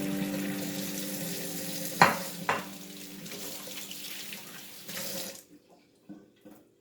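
Kitchen tap running into a sink as okra is rinsed, with two sharp knocks about two seconds in. The water shuts off about five seconds in, leaving a few faint knocks.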